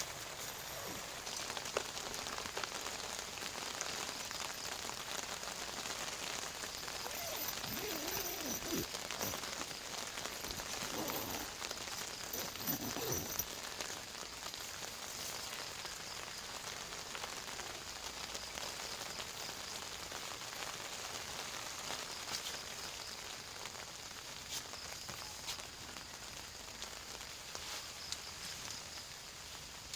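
Rain falling steadily on a tent, a fine patter of many drops. A few faint swooping sounds come through around the middle.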